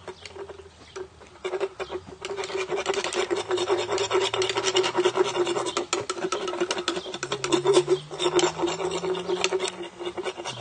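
Equine dentist's hand rasp (float) filing a horse's molars, a rapid run of rough scraping strokes that starts about a second and a half in.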